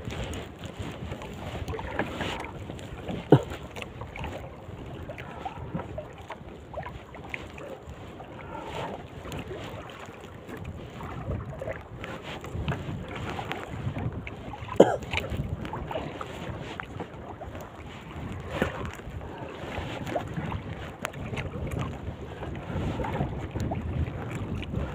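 Wind buffeting the microphone over water moving around a small fishing boat, with scattered knocks on the boat, the sharpest about three and fifteen seconds in.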